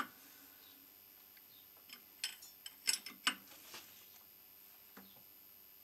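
Metal clinks and clicks of a spanner on a clamp nut as a cast iron wheel is clamped to a jig on a lathe faceplate. There is a quick cluster of about eight clinks two to four seconds in and a single one near five seconds.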